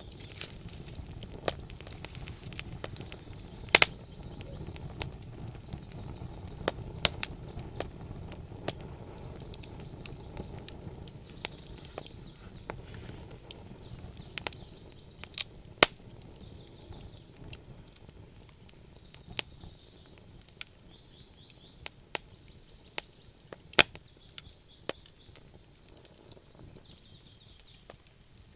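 Wood fire in a fireplace crackling, with sharp pops at irregular intervals over a low rumble of flames that weakens about halfway through.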